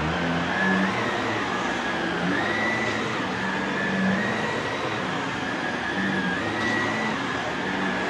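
Shark NV360 Navigator Lift-Away upright vacuum running with its brushroll spinning, pushed over carpet: a steady rushing motor noise with a high whine that steps a little up and down in pitch.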